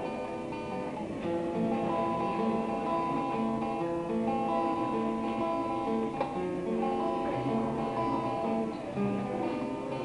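Acoustic guitar being played, picking a melody of ringing notes that change every half second or so.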